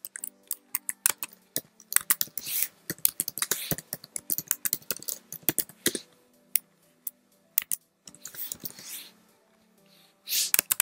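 Typing on a computer keyboard: quick runs of key clicks broken by short pauses, over quiet background music. A couple of brief rushes of noise come near the end.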